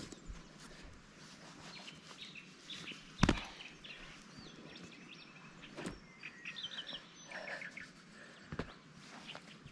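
Small birds chirping and calling in short, repeated notes over a steady background hiss, with a few sharp knocks; the loudest knock comes about a third of the way in.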